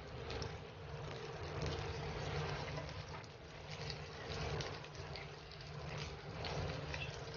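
Eggplant omelette sizzling and crackling in hot oil in a frying pan, with a steady low hum underneath.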